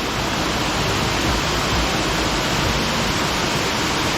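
Mud Creek Falls cascade rushing steadily, a constant even roar of falling water.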